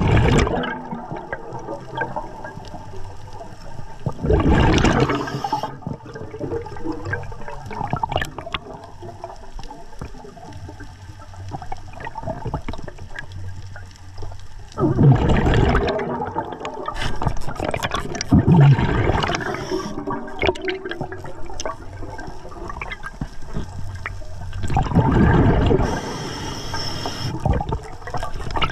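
Underwater sound: rushes of air bubbles every few seconds, with a low steady rumble and scattered small clicks between them.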